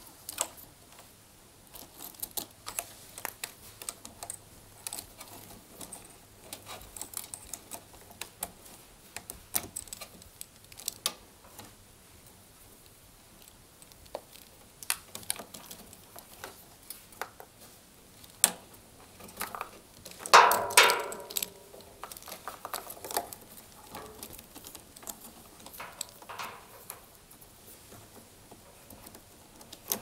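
Light, scattered clicks and rustles of electrical wires and their plastic connectors being handled, untangled and pulled through the back of a tumble dryer, with one louder rustle lasting about a second, two-thirds of the way through.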